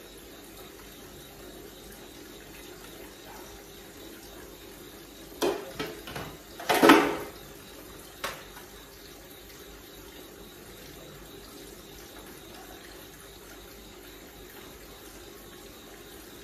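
Kitchen tap running steadily into a sink while dishes are washed by hand. A little past the middle, dishes clatter against each other in a short burst, the loudest a clank, followed by one more knock.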